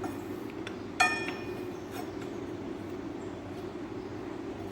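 A single sharp metallic clink with a brief ring about a second in, then a few lighter clicks. It is a motorcycle brake pad's metal backing plate knocking against the caliper as it is pushed into place by hand. A steady low hum runs underneath.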